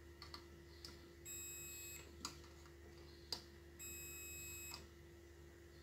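Digital multimeter's continuity buzzer giving two high-pitched beeps, each under a second long, as the probes touch parts on a TV power-supply board. The beep is the meter's sign of continuity through the part under test. Light clicks of the probe tips come in between.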